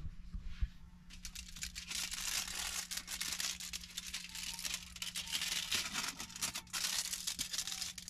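Aluminium foil crinkling and rustling as a foil-wrapped breakfast wrap is handled and flipped over on top of a portable propane heater, in uneven rustles for most of the stretch, over a steady low hum.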